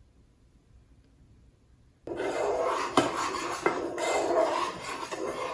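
Near silence, then about two seconds in a utensil starts stirring and scraping steadily around a bowl, mixing the dry ingredients of flour, cacao powder, salt and baking powder, with two sharp clinks against the bowl.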